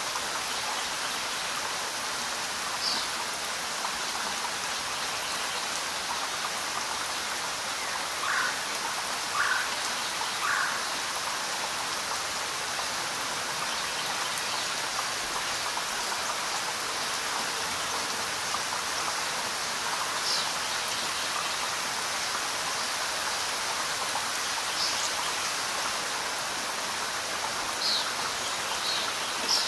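Steady rain falling, an even hiss. A few brief, sharper sounds stand out now and then, three of them in quick succession about a third of the way in.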